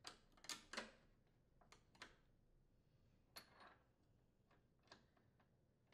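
Sparse, faint clicks and light knocks as a lawn mower's plastic height adjustment lever and metal arm are handled and fitted onto the wheel's bearing support plate. The loudest pair comes in the first second, with a few softer ticks after.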